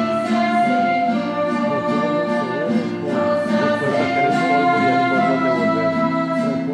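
Congregational hymn at Mass: voices singing with vibrato over an instrumental accompaniment of long held chords. The chords change a few times, near the second, third and fourth seconds.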